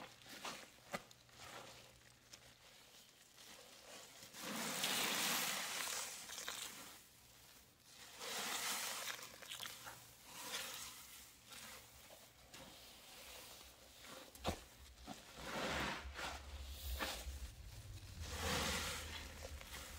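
Hands squeezing and crumbling a damp paste of cleaning powder mixed with liquid cleaner. The sound comes in several noisy bursts, each a second or two long; the two in the first half are the loudest.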